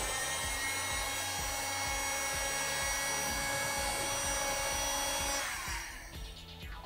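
Heat gun running with a steady whine from its fan motor while shrinking heat-shrink tubing over a crimped Dupont wire connector. It is switched off near the end and the whine falls away.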